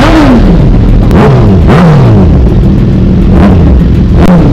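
Sport motorcycle engine idling and revved in several quick throttle blips, each rising and falling in pitch.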